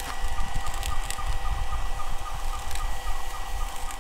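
Dry magnetic separator and its feed auger running on their small electric motors: steady tones with a chirp that repeats about five times a second.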